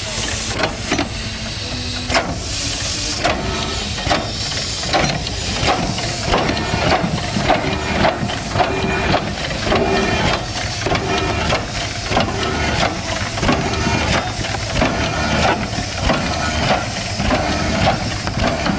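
Replica Fardier du Cugnot steam carriage hissing steam as it gets under way, with a quick, fairly regular run of sharp knocks and clatter from its two-cylinder steam engine and drive.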